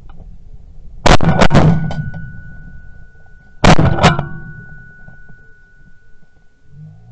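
Shotgun shots at a flying goose: a quick cluster of reports about a second in and another about two and a half seconds later, each followed by a fading rumble. A thin steady high ring hangs on after them.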